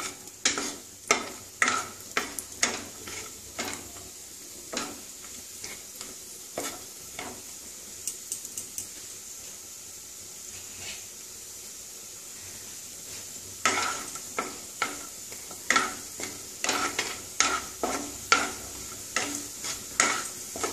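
Cashews and raisins frying in shallow oil in a non-stick kadai with a steady sizzle, while a wooden spatula stirs them, knocking and scraping against the pan. The stirring stops for a few seconds midway and then starts again.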